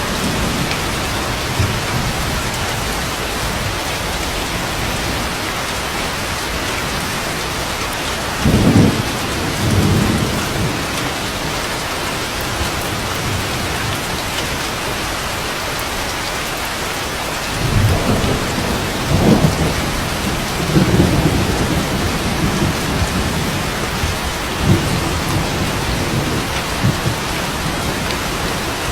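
Steady rain falling, with low thunder rumbling about a third of the way in and rolling again for several seconds after the middle.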